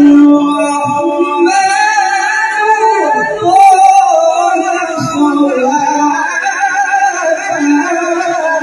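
A man's solo Quran recitation (tilawah), sung in a high, ringing, melodious voice through a handheld microphone and PA speaker. He holds long notes that waver and bend in ornaments.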